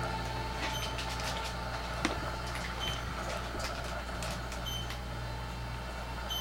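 Light handling clicks from a Toshiba Satellite P745 laptop being fitted with its battery pack and powered on, with one sharper click about two seconds in, over a steady low hum.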